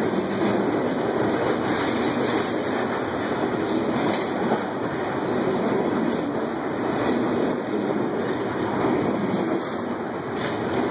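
Freight train of covered hopper cars rolling past: a steady noise of wheels running on the rails.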